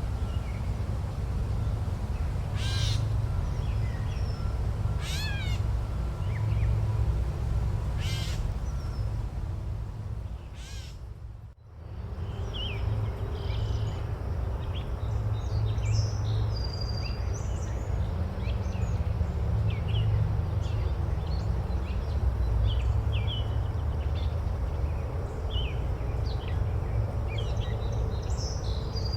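Forest ambience: a crow cawing four times, a few seconds apart, over a steady low rumble. About twelve seconds in the sound dips out briefly and gives way to many small birds chirping.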